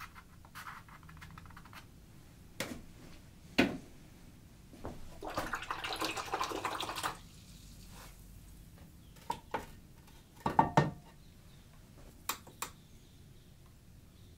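Watercolour brush clinking and tapping against a water jar and palette in scattered sharp clicks. About two seconds of swishing near the middle as the brush is rinsed in water.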